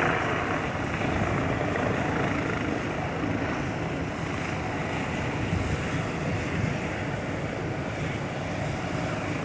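Helicopter rotor and engine running steadily, with a faint high whine that fades out about four seconds in.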